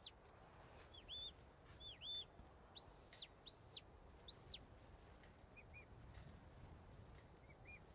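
Shepherd's whistle commands to a working sheepdog: a run of short, clean whistle notes, each swooping up, holding and dropping. Two lower notes come about a second in, then three higher ones, then a couple of faint short pips near the end.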